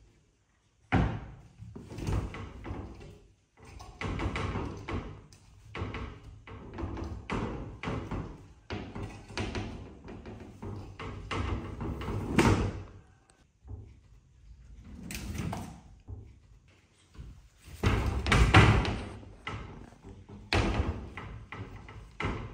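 Glass cabinet doors rattling, knocking and banging as a small monkey pulls at and climbs on them: an irregular run of knocks and thuds, loudest around three-quarters of the way through.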